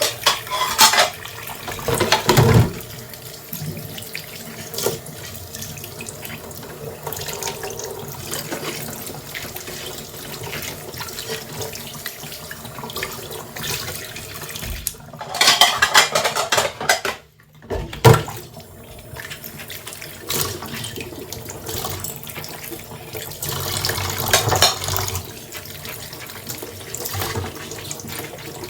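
Tap water running into a sink while dishes are washed by hand, with several louder spells of splashing and knocking and a brief break in the flow about seventeen seconds in.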